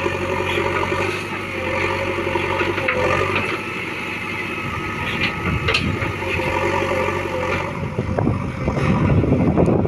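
Diesel engines of a backhoe loader and tractors running steadily, with scattered knocks and clatters about five to six seconds in and again near the end.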